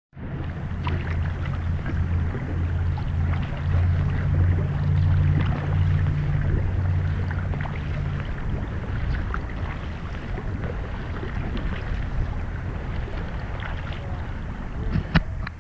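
Kayak paddle strokes in river water: steady swishing and dripping with small clicks, a low steady hum through the first half, and one sharp click near the end.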